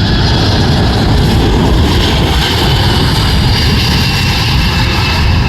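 Boeing KC-46 Pegasus tanker's twin turbofan engines during a flyby: a loud, steady jet roar with a faint high whine that slowly falls in pitch as it passes.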